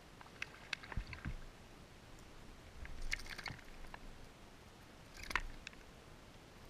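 Faint handling noise as a fish is reeled in and lifted into a kayak: three short clusters of clicking and crackling, near the start, about three seconds in and about five seconds in.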